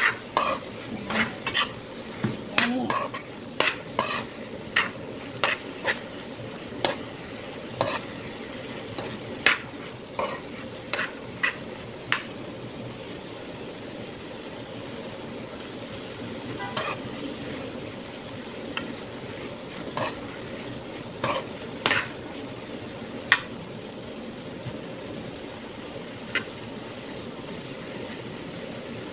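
Chicken and string beans stir-frying in a pan: a steady sizzle with sharp clicks and scrapes of the utensil against the pan as the food is tossed. The clicks come one or two a second for the first dozen seconds, then more sparsely.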